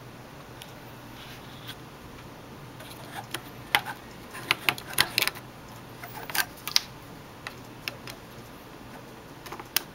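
A cable plug being handled and worked at a small circuit board's connectors: scattered sharp plastic clicks and knocks, most of them packed between about three and seven seconds in and a few more near the end, over a steady faint fan hum.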